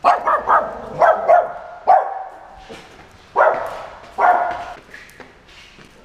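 A small dog barking: a rapid string of short, high barks, about eight in all, bunched in the first two seconds. Two longer barks follow about halfway through, each trailing off with some echo.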